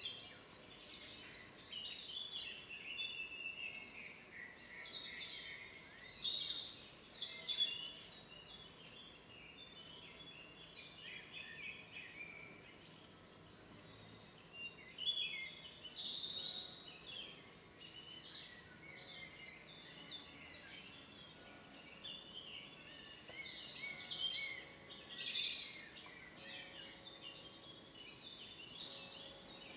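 Songbirds singing in quick, chirping and whistled phrases that come in bursts, with a quieter stretch of several seconds in the middle.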